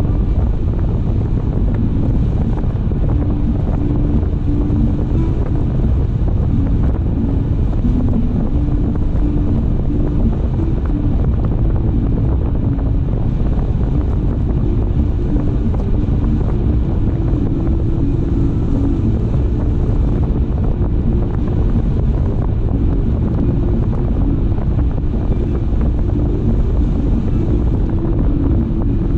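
A car running at road speed: steady low rumble of tyres and engine with wind noise on the microphone, and a faint engine hum whose pitch shifts now and then.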